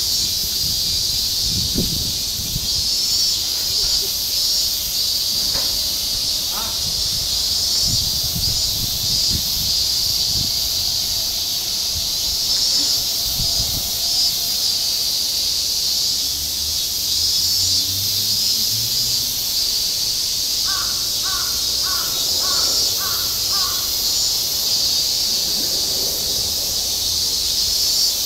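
Steady, high-pitched, pulsing chorus of summer cicadas. About three quarters of the way through, a crow caws six times in quick succession.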